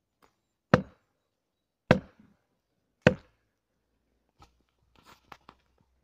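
Three heavy metallic blows about a second apart, driving a felling wedge into the cut of a standing tree to tip it over. A few much fainter knocks and ticks follow near the end.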